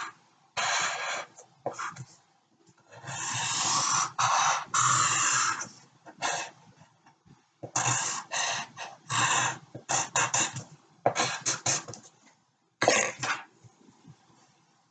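Pencil scratching across paper on a hard desk as lines are drawn: irregular strokes that start and stop, some quick and short, some drawn out for a couple of seconds, with a run of quick strokes in the middle.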